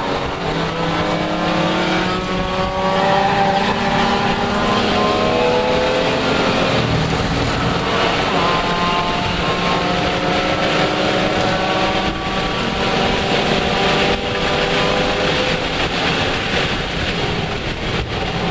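Lexus IS300 race car's inline-six engine heard from inside the cockpit at full throttle. Its pitch climbs steadily for a few seconds, drops back and climbs again several times as the car accelerates through the gears, under a steady rush of wind and road noise.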